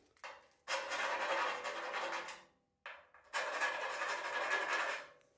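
Rat-tail file rasping inside a hole in a 1978 Dodge pickup's steel frame, in two long strokes of about two seconds each, scraping rust and dirt out of the hole.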